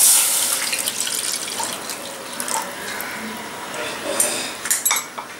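Milk poured into a hot aluminium pan of butter-fried grated bottle gourd: a splashing pour and hiss that fade away over the next few seconds, with a few light knocks near the end.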